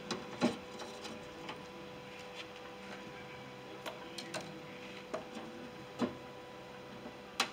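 Scattered clicks and taps of a screwdriver and metal latch hardware inside the bare steel inner panel of a Ford E350 van's rear cargo door, with the sharpest clicks about half a second in, around six seconds in and near the end. A faint steady hum runs underneath.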